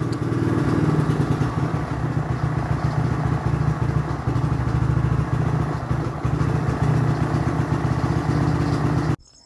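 Motorcycle engine running steadily at low speed while being ridden, a low even engine note with road and wind noise over it; it cuts off suddenly near the end.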